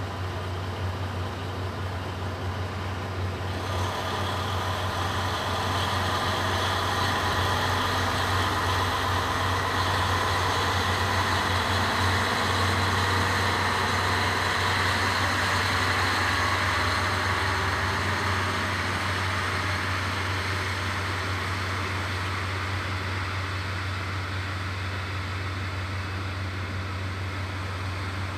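Diesel train going by: its running noise builds for several seconds, holds, then fades away, over a steady low hum.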